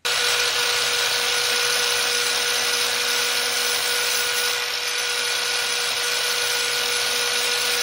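Electric angle grinder running at steady speed and grinding a steel sawmill bandsaw blade: a steady motor whine over the hiss of the disc on the steel. The blade is being cleaned up before it is welded.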